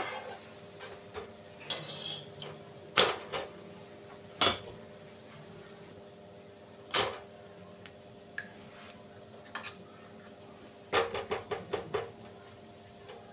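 Metal spatula clinking and scraping on iron tawas (flat griddles) while parathas are turned and moved. There are single sharp clinks every second or two at first, and a quick run of about eight taps about eleven seconds in, over a faint steady hum.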